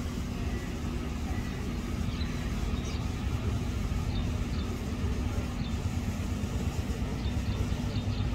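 Steady low rumble of road traffic with a constant hum, and a few brief high chirps of small birds scattered through it.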